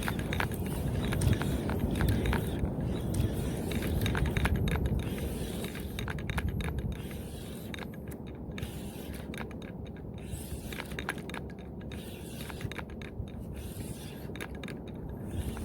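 Silver Rays 5000 spinning reel being cranked to retrieve a jig, its gears whirring with scattered clicks, over a steady low rumble.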